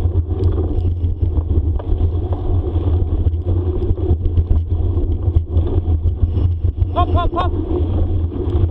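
Steady low rumble of wind and rolling noise from a bikejoring bicycle moving along a forest trail, with scattered clicks and crackles from the tyres. About seven seconds in come three short squeals, each rising and then falling in pitch.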